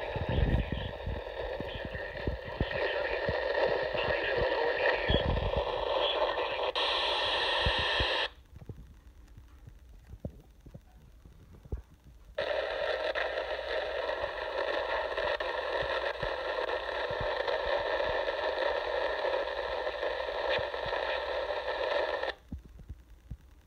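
Radio Shack Pro-95 handheld scanner's speaker putting out heavily distorted, buzzy narrow-FM audio from a UHF channel at 453.125 MHz. The audio breaks off about 8 seconds in, comes back about 4 seconds later and cuts off sharply near the end as the scanner resumes scanning. The owner suspects an FM discriminator failure or an overloaded front end is behind the distortion. A couple of dull handling knocks are heard early on.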